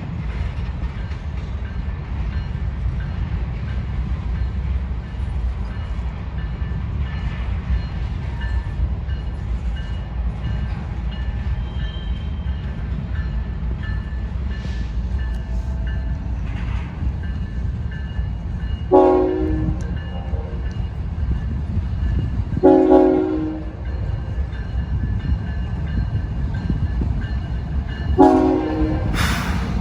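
Union Pacific diesel locomotives of a three-unit light-engine consist rumbling steadily, with the lead locomotive's multi-chime air horn sounding three blasts in the second half: two short ones about four seconds apart, then a longer one near the end.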